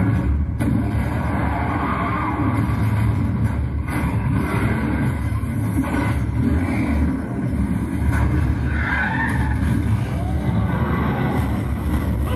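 Movie sound effects played loudly through a TCSTAR TCS3522 speaker set: a car engine running hard with tyres skidding, over a heavy, steady bass rumble.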